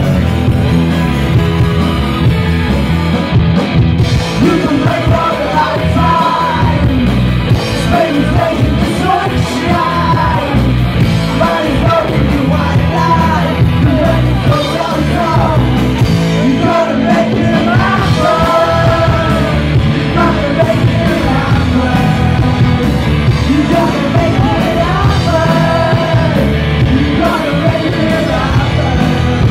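A live rock band playing loud, with electric guitars and drums under a sung lead vocal that comes in about five seconds in.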